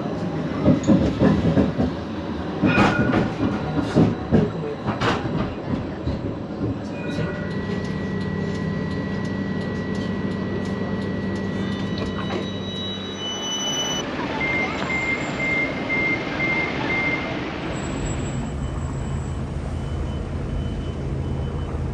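Edinburgh tram, a CAF Urbos 3, running on street rails: clattering and knocking from the wheels over the first several seconds, then a steady hum. Partway through comes a row of short, high beeps.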